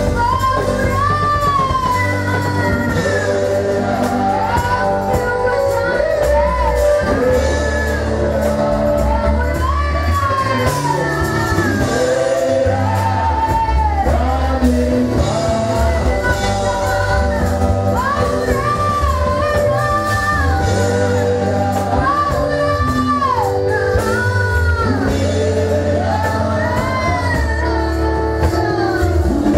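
Worship song: singing voices over instrumental backing with long held bass notes.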